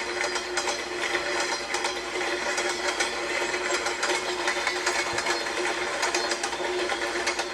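Train wheels clattering over the rail joints in a rapid, steady clickety-clack, with a steady hum underneath.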